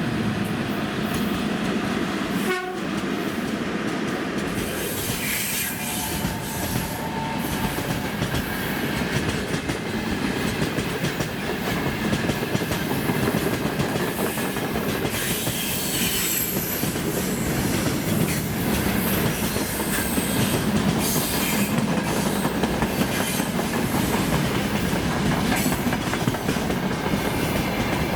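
VL80S twin-section AC electric locomotive hauling a freight train past at speed: steady rumble and clatter of wheels over the rail joints, slowly growing louder. Its horn is dying away at the very start.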